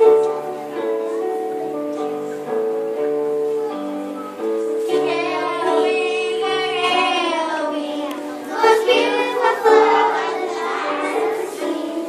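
Children singing a song over an instrumental accompaniment of steady held notes; the voices come in about five seconds in.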